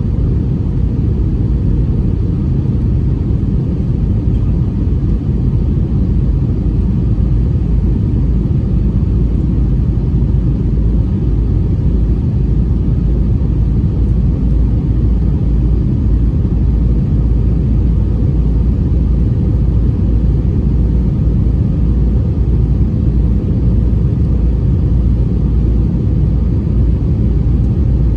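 Steady low rumble of engines and rushing air inside the cabin of a Lufthansa Airbus A321 airliner in flight.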